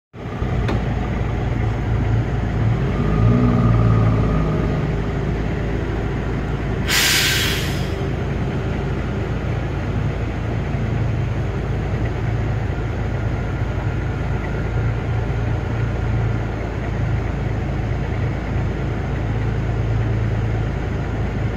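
A diesel engine runs steadily, swelling slightly a few seconds in. A short, loud hiss of air comes about seven seconds in.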